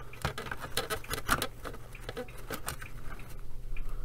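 Quick, irregular little plastic clicks and rattles as hands turn the knob and shift the exposed mechanism of a Panasonic RF-2400 portable radio; the clicking thins out about three seconds in.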